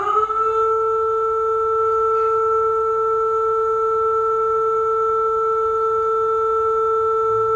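Emergency alert alarm tone from a mock EAS broadcast: a synthetic tone that finishes sliding up in pitch in the first half second, then holds as a loud, steady chord of several pure tones.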